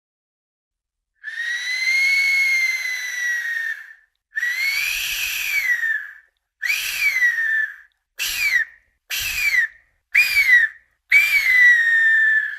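Ancient Mexican resonator whistle blown in seven breathy, high-pitched blasts, each swelling up in pitch and sliding back down; the first blast is long, the middle ones short, and the last trails off past the end.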